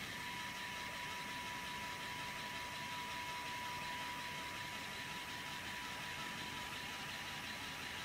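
LEGO electric motors running the model's pneumatic compressor pumps: a steady, even whine with a hiss above it while the pneumatic cylinders raise the loader arm.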